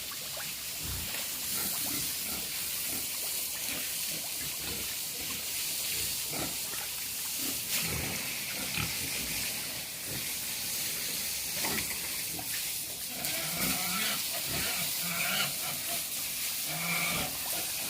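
Pigs grunting at irregular intervals, with a few longer pitched calls in the last few seconds, over a steady hiss.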